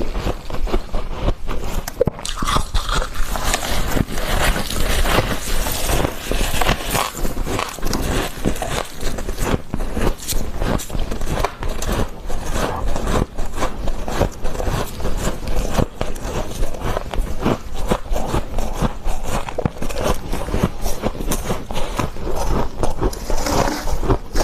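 Freezer frost crunching and scraping as it is bitten and eaten, a dense run of quick crackles without pause.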